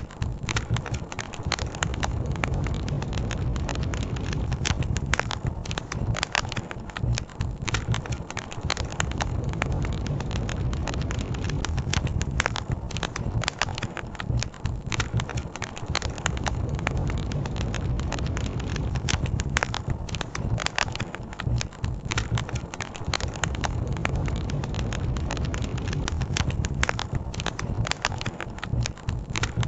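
Campfire crackling steadily with many sharp pops and snaps, over a constant low rush of flowing river water.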